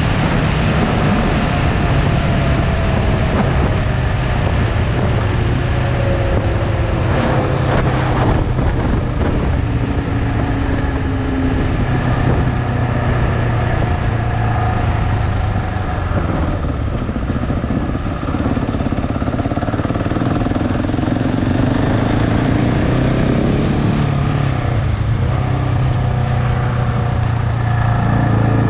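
KTM 690 Enduro R's single-cylinder engine running under way. Its note drops over the first dozen seconds, then holds steady.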